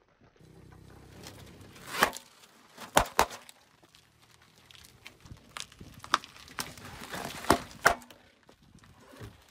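About seven sharp pops and cracks, spaced a second or two apart, as small objects are burst and crushed under a car tyre. A low hum runs under the first two seconds.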